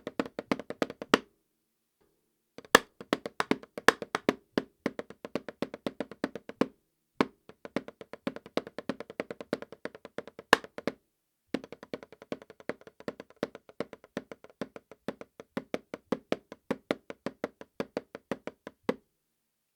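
Drumsticks playing fast strokes on a Remo practice pad with a Silentstroke mesh head, in runs broken by short pauses, with a few strokes louder than the rest. The playing stops shortly before the end.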